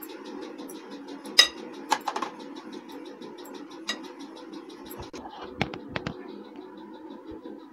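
A spoon spreading cream in a glass bowl, clinking against the glass: one sharp clink about a second and a half in, a quick run of clinks around two seconds, another near four, and a few more around six. A steady low hum lies underneath.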